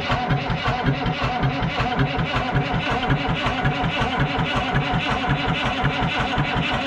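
Detroit Diesel 3-53 three-cylinder two-stroke diesel being cranked over on its starter with a battery boost, a steady rhythmic churning, in an attempt to get the never-run crate engine to start.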